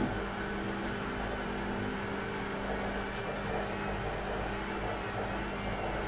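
Top-loading washing machine running on a cotton 60° wash: a steady hum over a rough churning noise.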